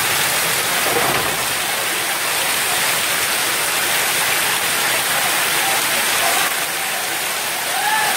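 Floodwater rushing down a street in a fast, muddy torrent: a loud, steady roar of water.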